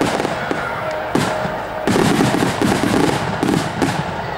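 Aerial fireworks bursting: single bangs near the start and about a second in, then a fast, dense run of bangs and crackling pops from about two seconds in until just before the end.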